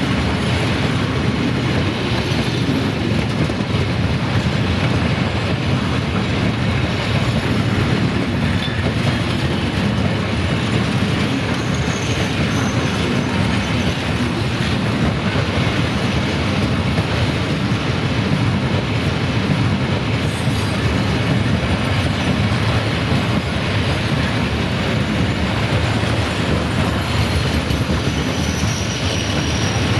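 Loaded freight wagons rolling steadily along the track, a continuous rumble of wheels on rails with brief faint wheel squeals.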